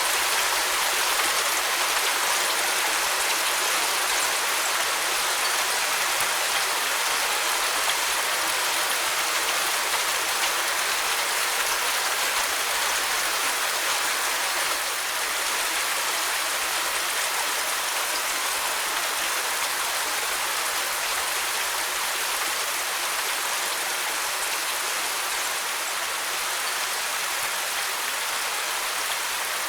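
Steady rain falling, an even dense patter of drops with no distinct strikes.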